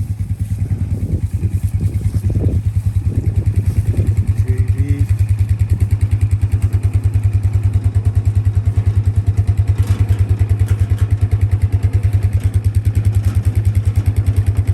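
Four-wheeler (ATV) engine running with an even, fast low pulse, building over the first few seconds and then holding steady.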